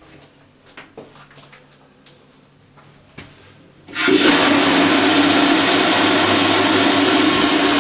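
A few faint clicks and taps, then about four seconds in a toilet flushes: a sudden loud rush of water that keeps going.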